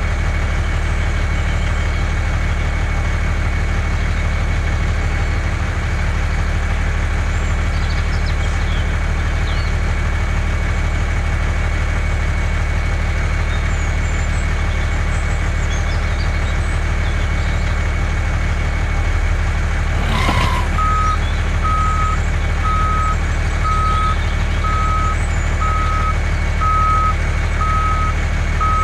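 Simulated diesel truck engine sound running steadily. About two-thirds of the way in, after a click, a reversing beeper starts up and beeps about once a second as the dump truck backs into position.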